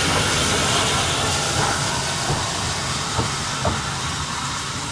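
Steam hissing loudly and steadily from an SE&CR H class 0-4-4 tank locomotive, slowly easing off, with two light metallic knocks a little after three seconds in.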